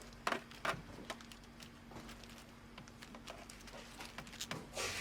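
A few faint, scattered clicks and light taps, the kind of handling noise made by picking up or moving small items, over a steady low hum.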